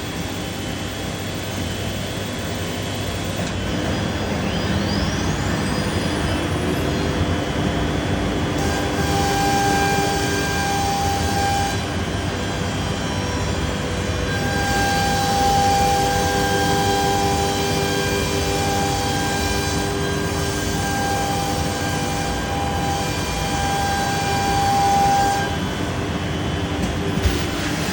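Biesse Rover K CNC router milling solid wood: a steady machine noise, a sharply rising whine about four seconds in, and held pitched tones that come and go as the cut proceeds.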